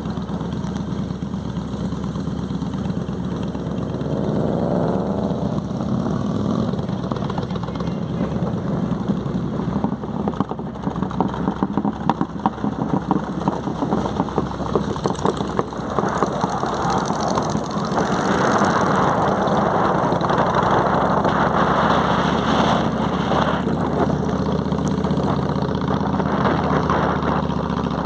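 Cruiser motorcycle engines running as a group rides on the road, a steady low engine note throughout. About four seconds in, the engine pitch rises for a second or so as a bike accelerates, and the sound grows louder and rougher in the second half.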